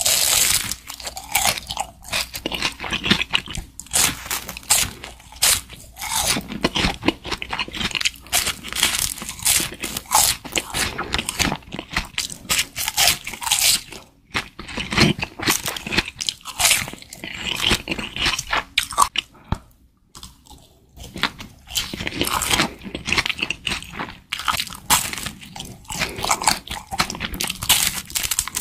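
Close-miked biting and chewing of crispy fried beef large intestine (daechang): a steady run of loud, crackly crunches, broken by two short pauses.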